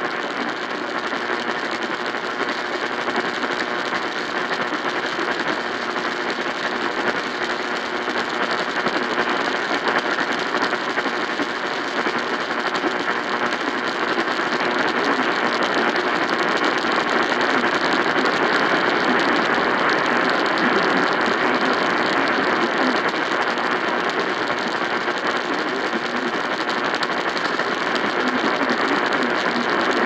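AM-band static from a Sangean weather alert radio's speaker tuned to 650 kHz: a dense, steady crackle and hiss with no voice or music coming through. It grows slightly louder about halfway.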